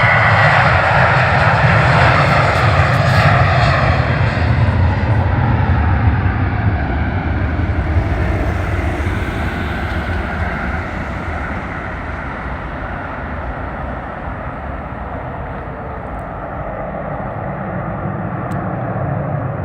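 Ryanair jet airliner taking off under full thrust: a loud, even jet-engine roar that slowly fades as the plane climbs away.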